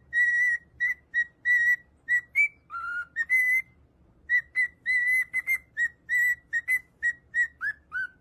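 A quick string of short, high, whistle-like squeaks, mostly at one pitch, with one lower note partway through and a few sliding chirps near the end.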